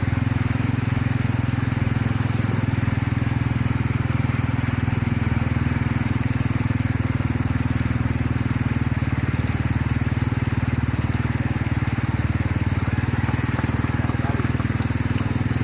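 A vehicle engine running steadily, an even drone with no change in speed.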